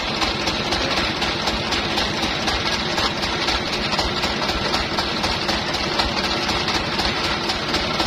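Sawmill engine idling steadily, not under load, with an even pulsing throb.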